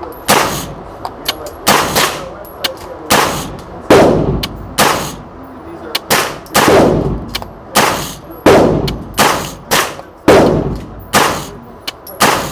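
ATI MilSport 9, a 9mm AR-15 carbine, firing about a dozen semi-automatic shots in a steady string, a little under a second apart, each shot echoing in an indoor range. The gun cycles without a stoppage: "perfect performance".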